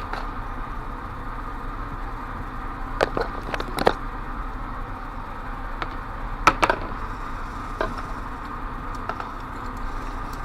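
Small clicks and taps of metal lock parts and tools being handled: a cluster about three seconds in, the sharpest pair a little past the middle, and a few faint ones after, over a steady background hum.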